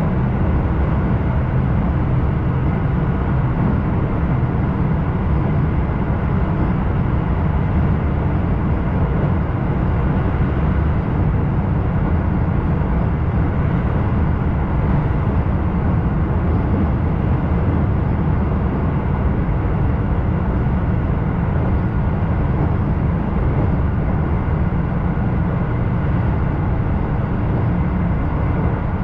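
Keisei 3000-series electric train running at a steady speed, heard from inside the car as a steady low rumble.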